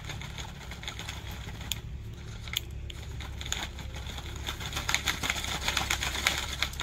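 Small electric motor of a toy RC tractor humming under load, with rapid irregular clicking and cracking from inside its gearbox, the 'kat kat' of gears skipping as the gearbox breaks. The clicking grows denser past the middle.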